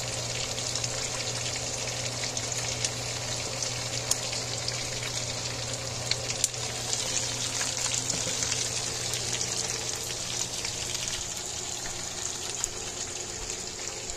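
Chicken pieces shallow-frying in oil in a pan: a steady sizzle with scattered crackles and pops, over a low steady hum.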